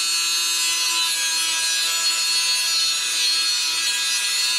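Dremel rotary tool running at high speed, its cutoff disc grinding against metal: a steady whine over a dense grinding hiss. The disc is being worn down to a smaller diameter.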